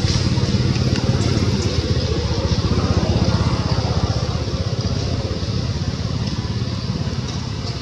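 A motor engine running steadily with a fast, even pulse. It swells a little midway and eases off toward the end.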